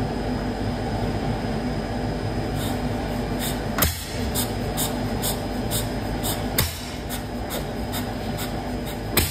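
A 1925 National 5V petrol-paraffin stationary engine running on its first start in decades, with no exhaust fitted and its fuel and governor not yet set. Under a steady running noise come regular clicks about twice a second and a sharper bang every three seconds or so.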